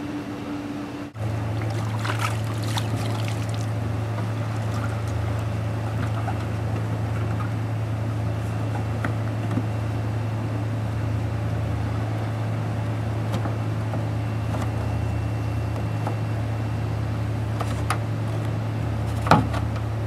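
A steady low mechanical hum with water trickling and lapping, and a few sharp knocks, the loudest near the end.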